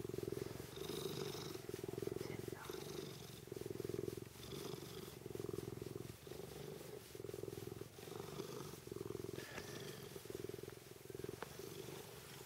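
Tonkinese cat purring close up while being stroked under the chin. The purr swells and dips about once a second with each breath.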